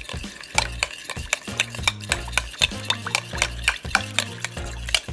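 A utensil whisking an oil-and-lime-juice marinade in a glass bowl, with quick, uneven clicks of the utensil against the glass.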